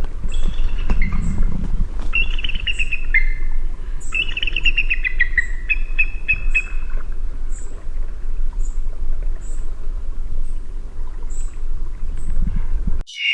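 Eagle calling in several quick runs of high, chittering piping notes during the first half, over a steady low rumble. Faint short high chirps repeat about every half second throughout, and everything cuts off abruptly near the end.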